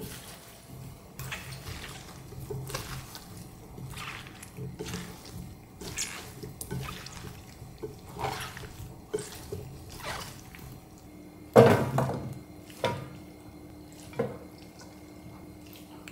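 Gloved hands tossing and squeezing cucumber kimchi chunks in chili seasoning in a glass bowl: wet squelching strokes about once a second. About twelve seconds in comes one sharp knock, then two lighter knocks.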